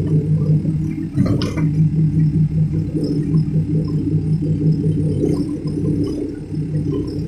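Heavy diesel engine running steadily with a low drone, and a brief clank about a second and a half in.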